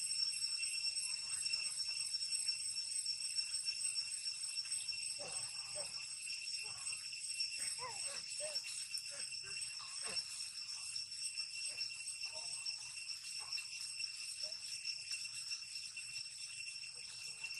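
Steady high-pitched insect drone, one unbroken tone with overtones, with a few short faint chirps in the middle.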